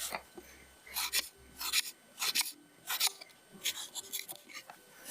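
A series of short scraping, rasping strokes, coming irregularly about once or twice a second.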